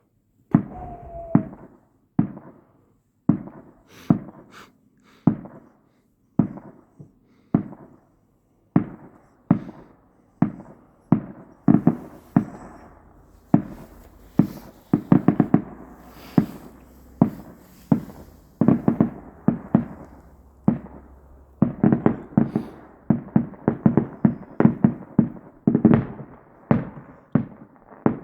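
Distant fireworks bursting: a long irregular string of sharp booms, each with a short echo, coming faster and closer together from about halfway through, with faint crackling in the middle.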